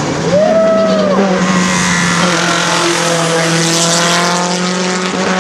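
Race car's engine running at high revs, holding a steady note as the car passes through a corner and pulls away up the road.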